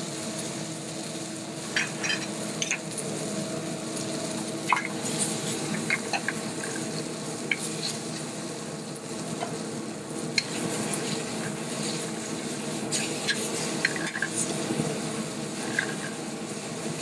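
Ribeye steak sizzling as it sears in butter in a hot skillet, with metal tongs clicking and scraping against the pan now and then. A steady hum, from the running vent hood fan, lies underneath.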